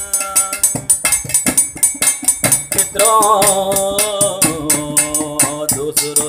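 Instrumental passage of an Uttarakhandi devotional folk song: a fast, steady beat of drum and rattle percussion, with a held melodic line coming in about halfway through.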